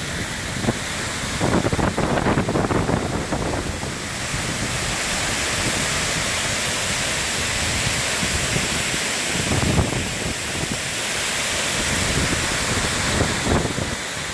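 Water pouring over a dam spillway and crashing into the pool below: a steady, loud rush. Wind buffets the microphone in low gusts about two seconds in, again near ten seconds, and near the end.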